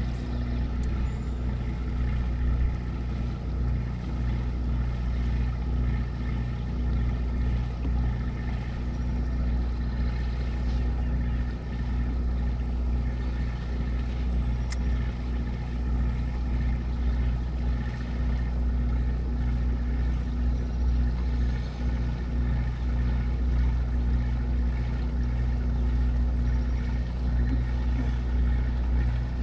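Generator running on a moored houseboat: a steady, unchanging engine hum.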